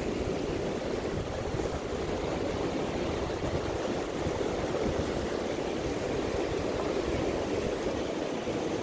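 Small mountain river rushing over boulders and rapids: a steady, even rush of water.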